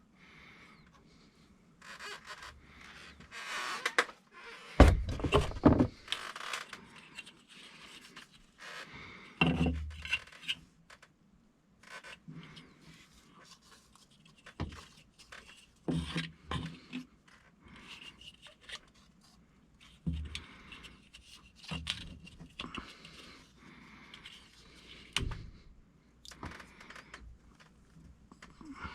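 Tools and metal plumbing parts being handled: irregular scrapes, knocks and clinks, with the loudest knocks about five and ten seconds in.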